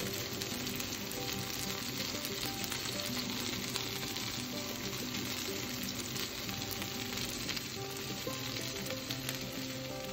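Cod fillets pan-frying in hot fat in a nonstick frying pan: a steady sizzle with fine crackling. Soft background music plays underneath.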